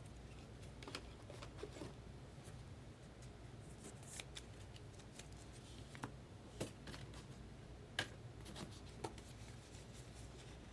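Faint, scattered clicks and light rustles of trading cards and their packaging being handled on a table, over a low steady hum.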